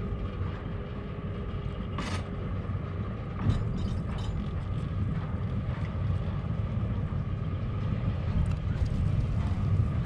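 Chairlift ropeway running: a steady low rumble with a faint steady hum, and a few sharp clicks and knocks from the cable machinery, about two and four seconds in.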